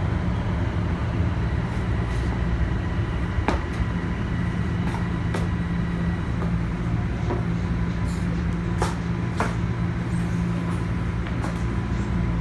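TTC Toronto Rocket subway train heard from inside the car, pulling into a station: a steady low rumble and hum from the running gear and motors, with a thin high whine for a few seconds early on and occasional short knocks and rattles.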